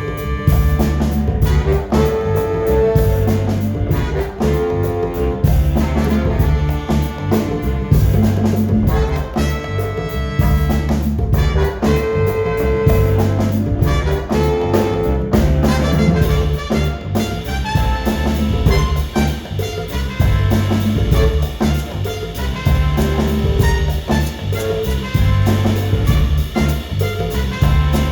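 Live band with a horn section playing a tune over a steady repeating bass groove, run through during a sound check.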